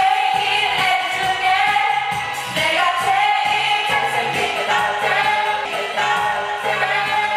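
Background music: a melody over a pulsing bass line.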